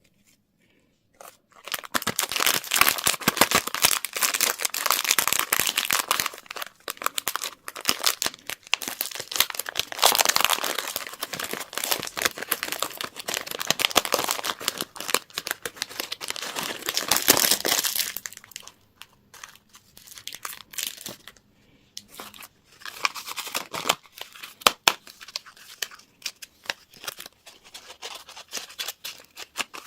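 Candy or toy wrappers being torn open and crinkled by hand, starting about a second and a half in. The crinkling is dense and continuous until a little past halfway, then turns to lighter, scattered crinkles and clicks.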